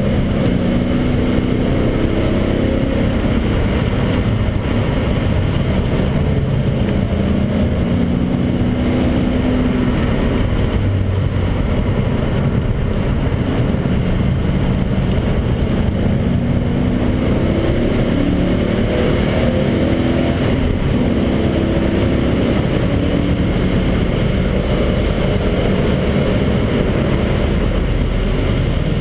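BMW 540's V8 engine heard from inside the cabin while lapping a race track, its pitch climbing under acceleration and dropping again several times, over steady road and tyre noise.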